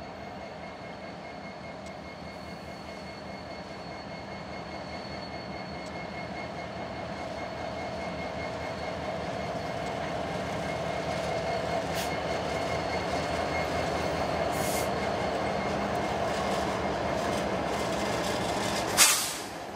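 BNSF diesel locomotives approaching and passing, engines running and growing steadily louder, with a faint steady high whine over the rumble. A single sharp bang, the loudest sound, comes about a second before the end.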